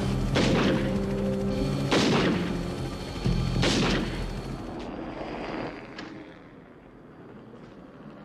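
Three rifle shots about a second and a half apart, each with a ringing echo, fired from a helicopter over held low notes of a film score. The music stops about five seconds in, leaving a quieter background.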